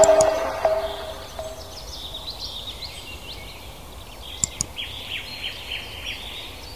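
Last notes of music dying away, then many small birds chirping over a faint background hiss, with two sharp ticks about four and a half seconds in.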